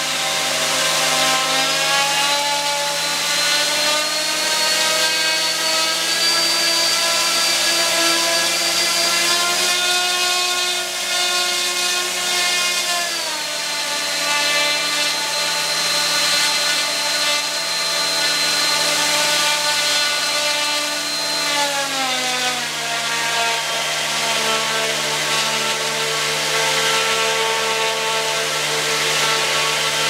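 Robbe electronic sound module inside a model Beaver airplane playing a simulated aircraft engine through its small speaker. The engine note climbs in pitch over the first several seconds as if throttling up, holds, then steps down in pitch twice, about a third of the way in and about three quarters of the way in.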